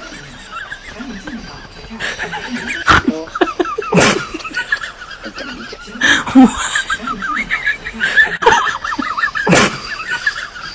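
Baby monkey crying in a run of rapid, wavering high squeaks, broken by a few sharp knocks or bumps.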